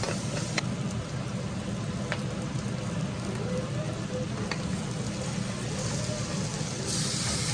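Onions and garlic sizzling in hot oil in a metal wok, with a few sharp clicks of a wooden spatula against the pan and a steady low hum underneath. Near the end the sizzle grows brighter as raw chicken pieces drop into the wok.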